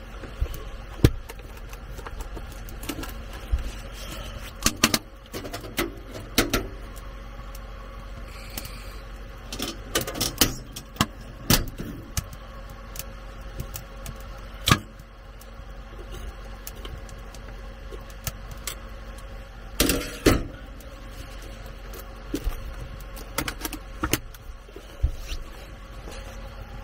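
Irregular clicks, clacks and knocks from handling a mametan anka, a charcoal-briquette foot warmer: its orange plastic case is opened and snapped shut, and metal tongs clack as a lit briquette is set into the insulated tray. A faint steady hum runs underneath.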